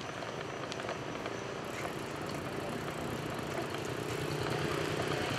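Street noise heard while riding a bicycle along a town road: a steady hiss of tyres and traffic. A motor vehicle's engine hum grows louder toward the end.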